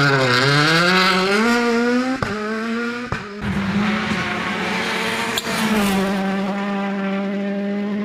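World Rally Car engines, 1.6-litre turbocharged four-cylinders, at full throttle: a car accelerates out of a hairpin with its revs climbing, then after abrupt cuts other cars pass at high revs, the last holding a steady note.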